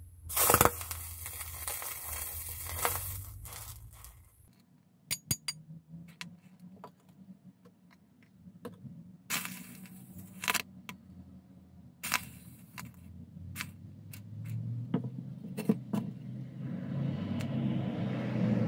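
Sulfur being added to a molten potassium nitrate and sodium hydroxide melt in a stainless steel bowl: sharp clicks and pops at uneven intervals as it flares, with a hiss in the first few seconds that rises again near the end.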